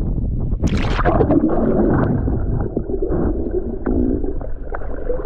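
A splash about a second in as the camera goes under the sea, then muffled underwater gurgling and bubbling heard through the submerged microphone.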